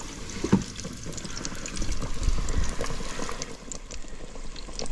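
A flour-and-egg-battered chicken fried steak frying in hot oil in a fryer: a steady bubbling sizzle with scattered small crackles, and a light knock about half a second in.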